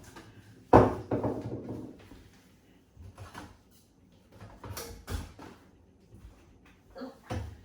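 Household items being taken out of an under-sink cupboard and set down. A sharp, loud knock about a second in rings on briefly, then lighter knocks and clatters follow.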